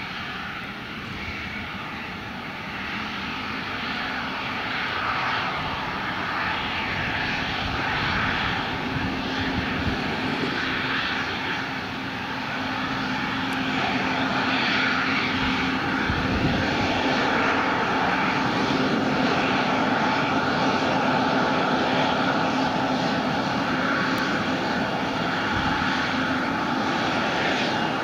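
Airliner engines running, the sound swelling over the first dozen seconds and then holding steady and loud, with a steady low hum underneath.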